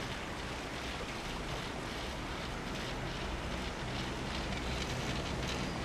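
Steady wind noise on the microphone with a low rumble underneath.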